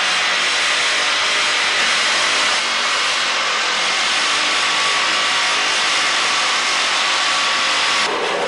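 Hand-held power grinder with an abrasive belt chasing a welded seam on a cast bronze sculpture section, a loud, steady grinding hiss of abrasive on metal that blends the weld into the surrounding surface. The grinding drops away sharply near the end.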